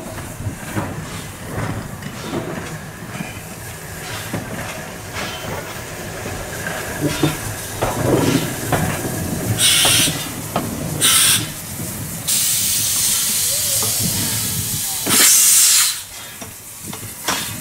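Caledonian Railway 0-4-4T steam tank locomotive No.419 moving slowly, with a low rumble and light knocks, then loud bursts of hissing steam from about halfway through. Two short bursts are followed by a longer one of two or three seconds, and the loudest comes a little before the end.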